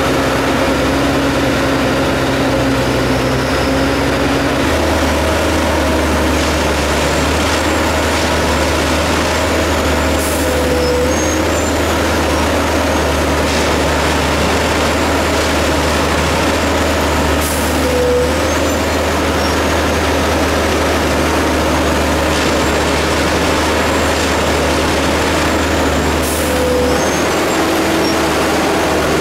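Railway track tamping machine at work: a loud, steady heavy engine and hydraulic drone, its note shifting about five seconds in. A brief sharp hiss comes three times, about eight seconds apart.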